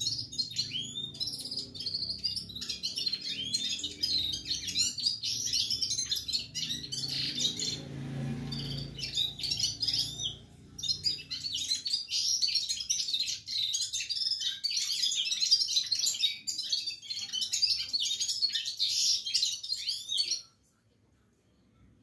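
Red-fronted serin singing a fast, continuous twittering song, breaking off briefly about halfway through, then stopping shortly before the end.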